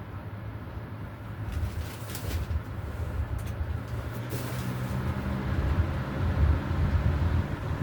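1999 Lasko 3733 box fan with a D-blade running, its motor humming steadily.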